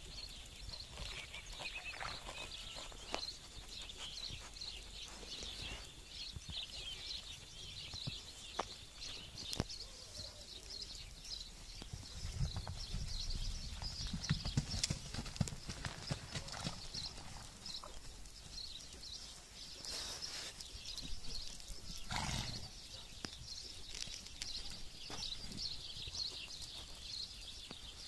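Horses' hooves thudding and scuffing in snow as the mares play and canter, with a few sharper knocks. A steady chatter of small birds chirping runs behind.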